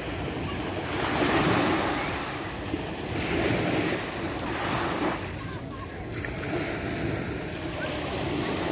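Small waves breaking and washing up a sandy beach, the hiss of the surf swelling and ebbing in several surges, with wind buffeting the microphone.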